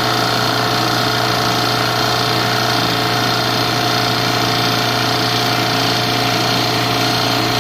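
JB F6 refrigerant recovery machine running steadily, its compressor drawing refrigerant out of the AC system into the recovery cylinder: an even hum with a few steady whining tones above it.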